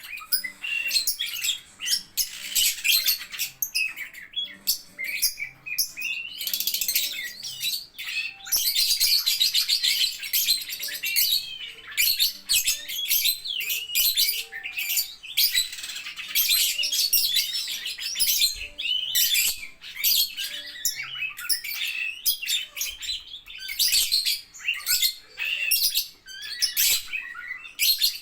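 Lovebirds chattering in rapid high chirps and squawks, the calling running on in long unbroken streams at times and breaking into short bursts in between.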